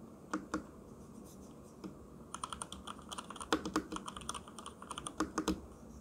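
Durgod Taurus K320 mechanical keyboard being pressed: a couple of single keystrokes, then a quick run of presses in the middle and two more near the end, including the spacebar, whose well-lubricated stabilizers keep it from rattling.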